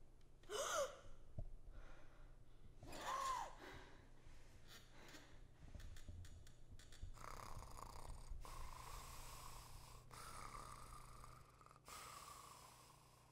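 Faint human vocal sounds: two short gasping cries, then slow, raspy breaths from about seven seconds in.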